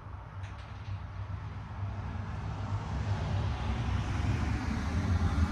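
Low steady rumble growing louder, with a couple of faint clicks about half a second in.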